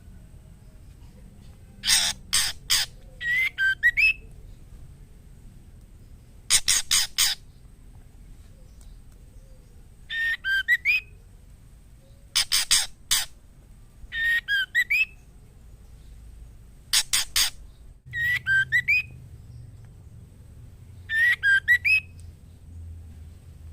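Female white-rumped shama calling to a male, the in-heat call of a hen in breeding condition. Groups of three or four harsh, rasping notes alternate with short whistled phrases of quick up-and-down notes, repeating every few seconds.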